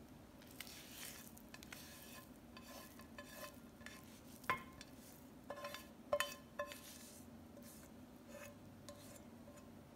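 Silicone spatula scraping cooked grated beetroot out of a nonstick frying pan, with a few sharp knocks that ring briefly, the loudest about halfway through and two more close together shortly after.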